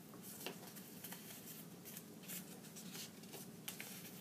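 Faint rustling and scratching of a sheet of scrap paper being handled and worked on, in short scattered strokes with a few light taps.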